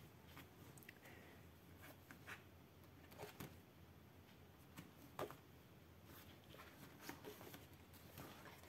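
Near silence with a few faint, short paper rustles and soft clicks, the sound of pages of a colouring book being handled and turned.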